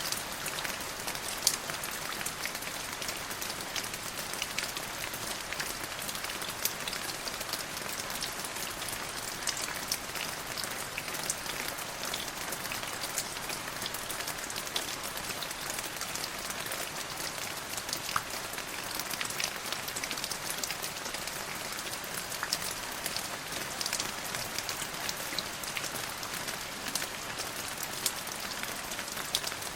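Steady rain falling on a hard surface, an even hiss dotted with close individual drop splats.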